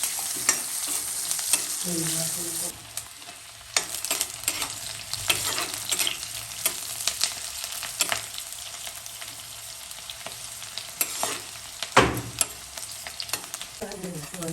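Onions and garlic leaves sizzling in hot oil, with a spatula scraping and knocking against the pan as they are stirred; a louder knock comes about twelve seconds in.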